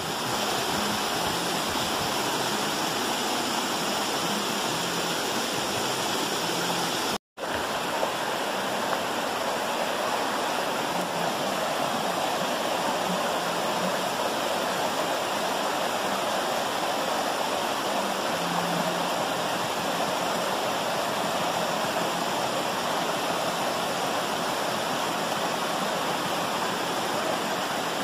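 Steady rush of a waterfall, water pouring over rock close by. The sound cuts out for a split second about seven seconds in.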